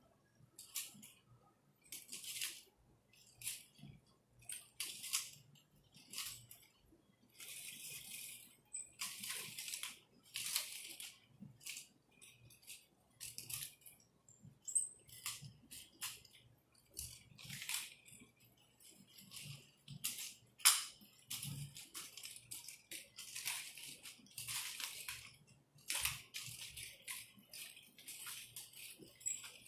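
Nunchucks being swung and spun, making an irregular run of swishes through the air, some quick and some drawn out, with a few sharp clicks from the sticks or their link, the loudest about two-thirds of the way through.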